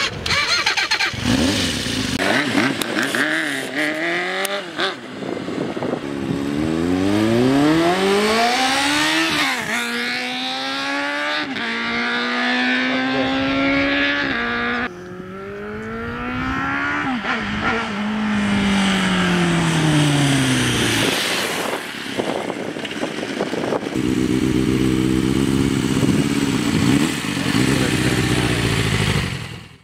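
Suzuki Bandit inline-four motorcycle accelerating through the gears, its engine note rising in pitch and dropping back at each gear change, then falling in pitch as it passes and slows. Several separate runs, each breaking off suddenly.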